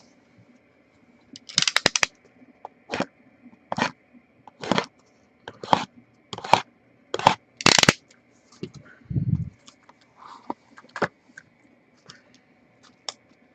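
A trading-card box and its packs being torn open and handled: a series of short crackling tearing strokes of cardboard and wrapper, about one a second, then a soft low thump.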